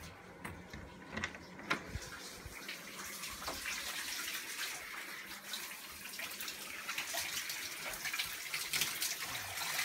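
Shower running: a steady hiss of water spray that grows louder two to three seconds in, after a few sharp clicks and knocks.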